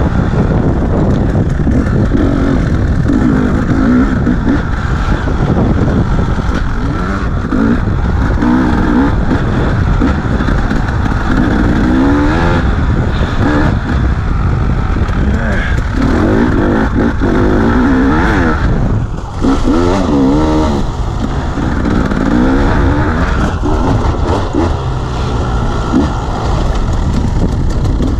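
Dirt bike engine being ridden, its note rising and falling again and again as the throttle is opened and eased off, with a brief drop about two-thirds of the way through.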